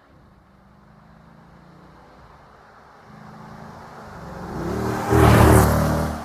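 SRT Grand Cherokee's V8 engine approaching and driving past close by. The engine note grows louder, steps up about three seconds in, and peaks with a rush of tyre noise about five seconds in, the pitch dropping as it goes past before fading.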